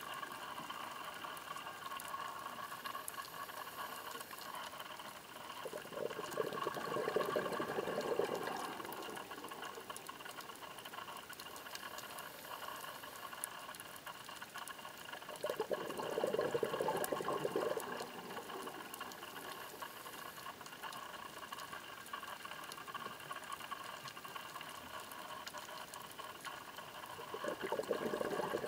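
Scuba diver's exhaled bubbles from the regulator: a bubbling rush of two to three seconds that comes three times, about every ten seconds, over steady underwater background noise.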